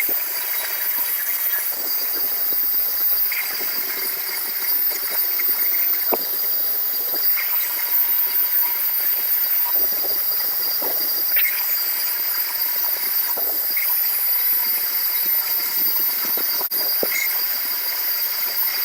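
A handheld rotary tool running at high speed with a steady high whine, its bit scouring surface rust off a steel hammer head with an uneven scraping rasp.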